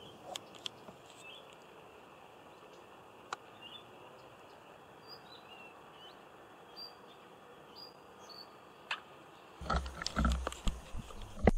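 Faint riverside ambience with short bird chirps scattered through it. About ten seconds in, louder irregular water sloshing and knocks start, with the camera at the water's surface.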